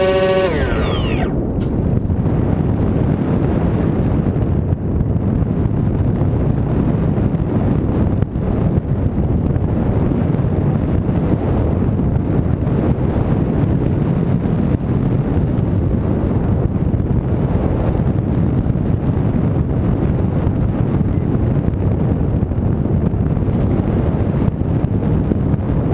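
Steady rush of wind over the microphone of a camera riding on an R/C model aircraft in flight, a dense low noise with no engine note. A falling whine dies away in the first second.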